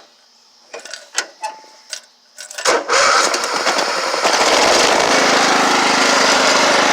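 A few clicks and knocks, then the engine of a 1990s Craftsman riding lawn mower starts about three seconds in and settles into a steady run.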